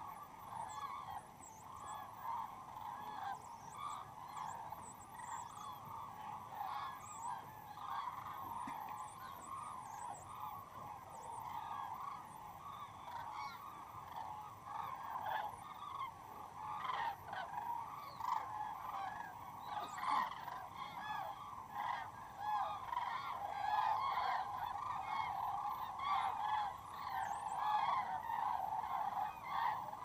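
A large flock of common cranes calling in flight: many overlapping calls merge into a continuous chorus that grows louder in the second half.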